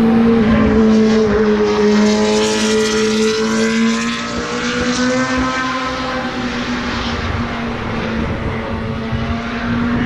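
Racing car engine running at a steady note on track. The pitch drops slightly in the first second, then holds, and the sound fades a little after the middle.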